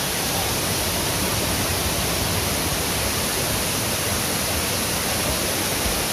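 Steady rushing noise, even and unbroken, spread from deep rumble to high hiss.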